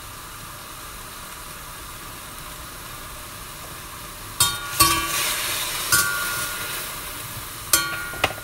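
Vegetables sizzling in a stainless steel wok, a steady frying hiss. From about halfway, a metal utensil strikes and scrapes the wok about five times with a ringing clink as the greens are stirred, and the sizzling grows louder after each stir.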